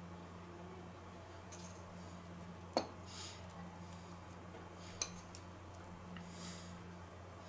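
Fingers pinching from a small ceramic bowl and sprinkling over meat: two sharp clinks against the bowl, about three and five seconds in, and soft rustles of the sprinkling, over a steady low hum.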